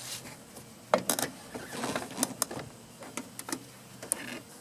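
Plastic car door trim panel being handled and pulled away from the door: a scattered series of sharp plastic clicks and light rattling.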